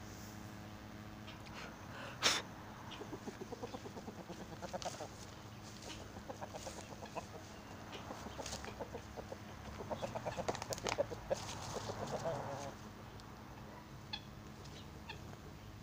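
Guinea fowl calling in two runs of rapid, repeated clucks, with a single sharp click a couple of seconds in.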